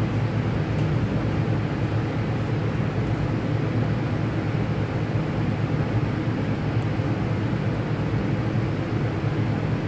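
Steady, loud ventilation noise: a low drone under an even rush of air.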